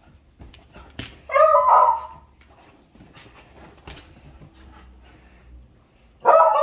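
Beagle puppy barking: a short run of drawn-out barks about a second and a half in and another starting near the end, with quieter knocks and rustling between.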